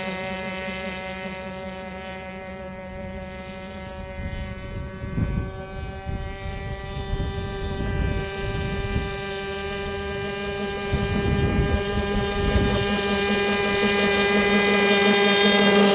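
An RC airboat's O.S. .25 two-stroke glow engine and propeller run at a steady high pitch, growing louder over the last few seconds as the boat comes closer. Gusts of wind rumble on the microphone in the middle.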